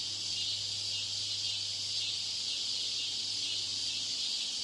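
Steady high-pitched hiss with a low hum underneath, the hum fading near the end: background noise laid over a listening-test recording to imitate a poor exam-room broadcast.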